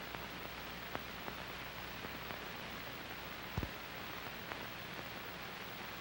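Steady hiss with a low hum, the noise floor of an old analog recording, with a few faint clicks and one louder low pop about three and a half seconds in.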